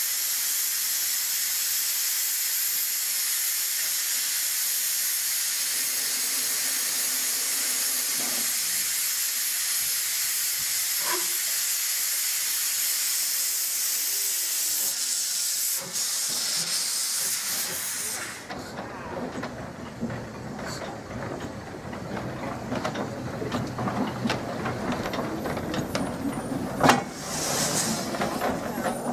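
Small saddle-tank steam locomotive blowing steam from its open cylinder drain cocks as it creeps along: a loud, steady hiss. About halfway through the hiss gives way to a quieter mix of knocks and clanks around the engine, with one louder knock near the end.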